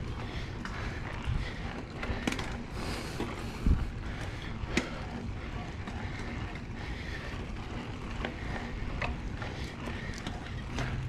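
Mountain bike riding on a dirt trail: a steady rumbling noise with a few sharp knocks, the loudest nearly four seconds in.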